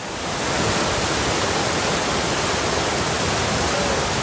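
Fast mountain river rushing through rocky rapids: a steady, dense rush of white water that swells up in the first half second and then holds even.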